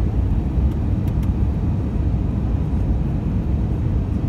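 Airbus A320's IAE V2500 engines and airflow heard from inside the cabin on final approach: a steady, low rumble.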